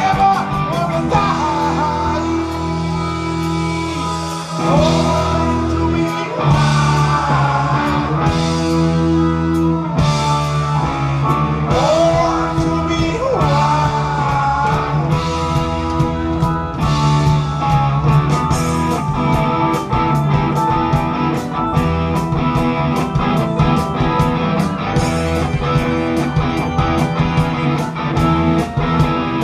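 Live rock band playing loudly: electric guitars over bass and steady drums, with a lead line of bending notes.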